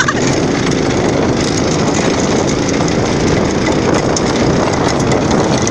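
Belt-drive off-road go-kart running steadily as it drives over grass and a gravel driveway, its small engine mixed with the rough rumble of tyres on gravel.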